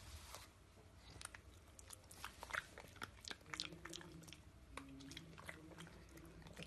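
Pug chewing and gnawing at a cloth, its teeth and mouth making a quiet string of small, irregular clicks and crunches.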